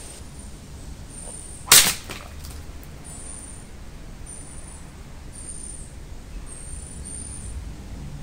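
A katana blade striking a dry, yellowing bamboo pole: one sharp crack about two seconds in. The dry bamboo splinters and splits rather than being cut cleanly.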